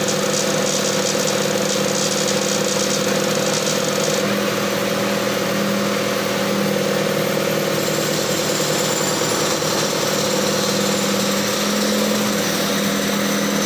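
Engine of a small crane truck running steadily at a constant speed, an even hum with no change in pitch.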